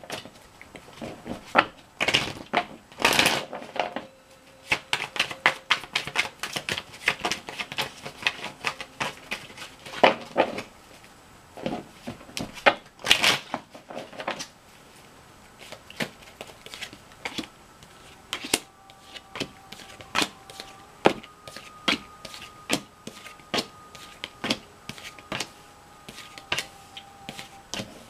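Tarot cards being shuffled by hand: dense runs of quick papery clicks, thinning out to separate clicks and snaps in the second half as cards are handled and drawn.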